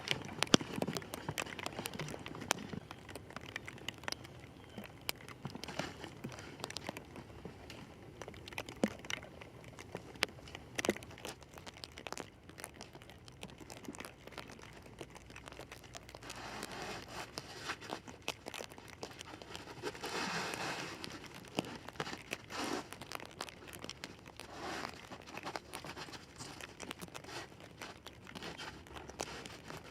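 Industrial stretch film (pallet wrap) crinkling and crackling as it is pulled off the roll and wrapped around a pole frame, with many scattered sharp clicks and a few louder rustling swells.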